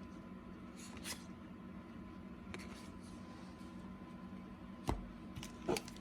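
Trading cards being handled: soft sliding and rustling of cardboard cards, with a sharp tap about five seconds in and another click shortly after, over a steady low hum.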